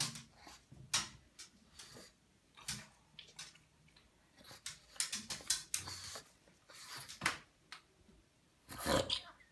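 A wet pug snorting and snuffling in short, irregular bursts, with a louder cluster near the end. This is her protest at being made to wait wet in the bathtub.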